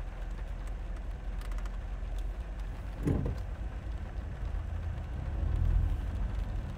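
Low, steady engine and road rumble inside a car moving slowly, swelling a little about five seconds in. A brief falling voice-like sound is heard about three seconds in.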